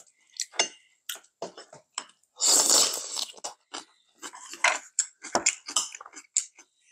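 Close-up chewing and crunching of soy-sauce-marinated crab, the shell cracking between the teeth in many short crackles, with the loudest, longest crunch between about two and three seconds in.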